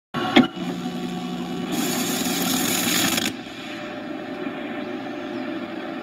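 Dual-deck VHS VCR starting tape playback: a click about half a second in, then steady tape hiss and hum through the TV speaker, louder for about a second and a half in the middle, before the recording begins.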